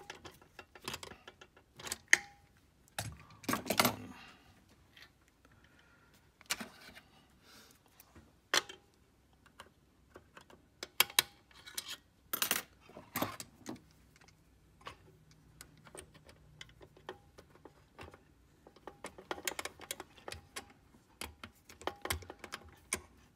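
Small metal screws and a nut driver clinking and tapping against the metal chassis of a slide projector: scattered sharp clicks through the whole stretch, with a faint low hum for a few seconds midway.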